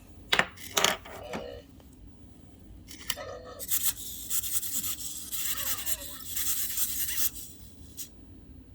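Handling noise from a small desk robot being picked up and worked on for a reset: two sharp clicks, then several seconds of scratchy rubbing and scraping.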